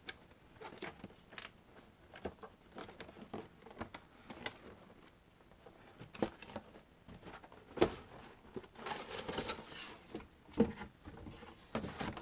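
Zip ties being snipped free and cardboard and plastic packaging handled: scattered clicks and rustling, with two sharp snaps, one about eight seconds in and one about ten and a half.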